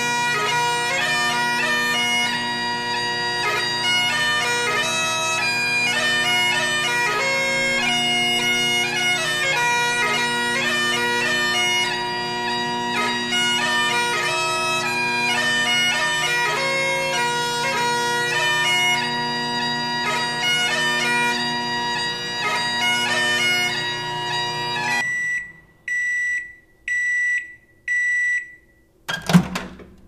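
Bagpipes playing a tune over a steady drone, stopping abruptly about 25 seconds in. Four short, high electronic beeps follow about a second apart, like a microwave oven's end-of-cycle signal, then a single sharp thump near the end.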